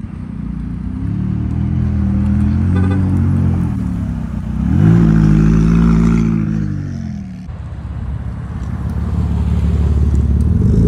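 McLaren sports car's engine as it drives slowly past, with a sharp rise in revs near the middle that falls away again. A black Mk4 Toyota Supra's engine then runs low and steady as it rolls up near the end.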